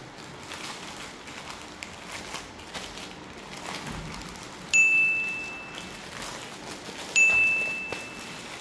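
Two identical bright chime dings, about two and a half seconds apart, each ringing out over about a second. Under them, faint crinkling of plastic wrap as it is folded around a ball of fondant.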